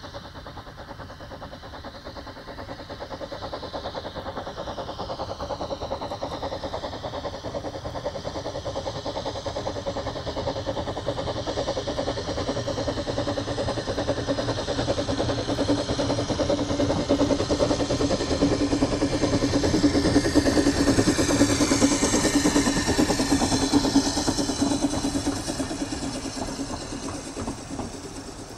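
Narrow gauge steam locomotive working a two-coach train past, its exhaust beats and running gear growing louder as it approaches, loudest about three quarters of the way through, then fading as it draws away.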